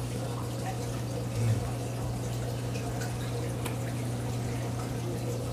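Reef aquarium running: a steady low pump hum with water trickling and dripping, and one brief low bump about a second and a half in.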